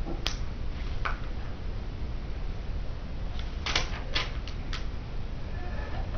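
Sharp clicks of small plastic Bionicle (Lego) pieces being handled and fitted together in the hands: a few scattered clicks, with a quick cluster of them just past the middle.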